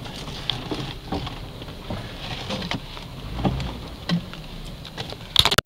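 Jeep crawling over a rough dirt track in four-wheel drive, heard from inside the cab: a low engine rumble with scattered knocks and rattles as the body jolts, and a cluster of louder knocks near the end.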